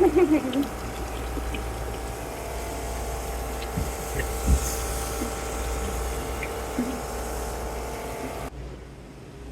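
Water splashing and running inside a small tank over a steady machinery hum with several held tones, likely the printing machine's chiller equipment. The sound changes abruptly near the end.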